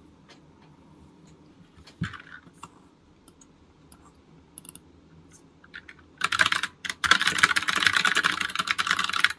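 Typing on a computer keyboard: a few scattered key clicks and a single thump about two seconds in, then a dense run of rapid keystrokes over the last three seconds, broken once briefly.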